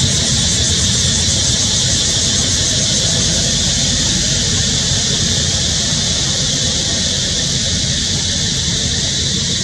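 A continuous, high-pitched insect drone, typical of a cicada chorus in tropical forest, holding steady over a low rumble.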